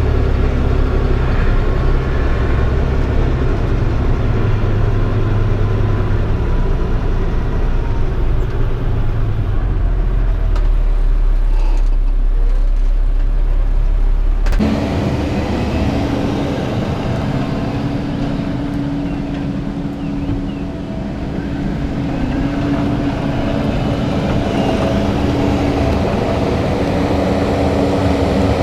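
A vehicle engine running steadily with a deep rumble. About halfway through the sound changes abruptly to a steady hum with a clear pitch.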